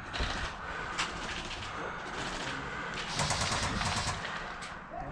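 Airsoft guns firing: a sharp single shot about a second in, then a rapid full-auto burst of about a second starting about three seconds in.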